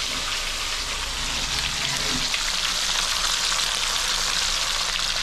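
Fish frying in hot oil: a steady sizzling hiss flecked with small crackles.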